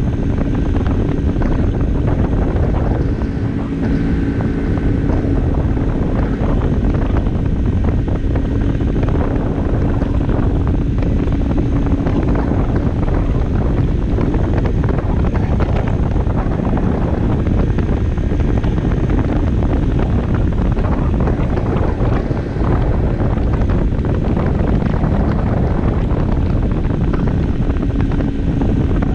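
Barton Volcano 50cc moped engine running steadily while riding at road speed, under heavy wind buffeting on the microphone. The engine note shifts briefly about four seconds in.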